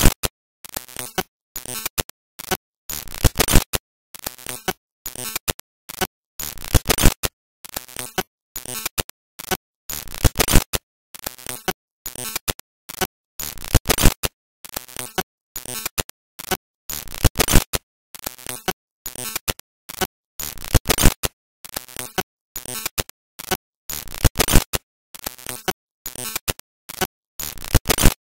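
Harsh, static-like noise chopping on and off in rapid, irregular bursts, several times a second.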